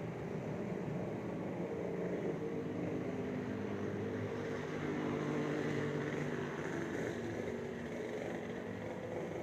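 Steady hum of distant traffic with a faint engine drone, swelling slightly midway.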